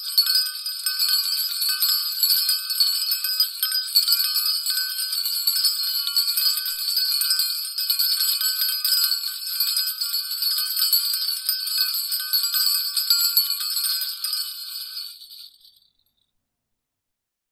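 Bells shaken continuously, giving a dense, bright jingling ring that fades away near the end.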